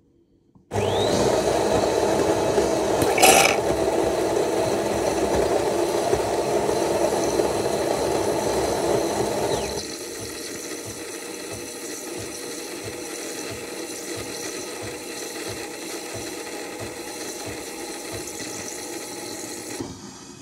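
Automatic espresso machine frothing milk and dispensing it into a glass mug for a cappuccino. It starts suddenly about a second in and runs loudly for about nine seconds, with a brief sharp sound near the start. It then carries on at a lower level until it stops near the end.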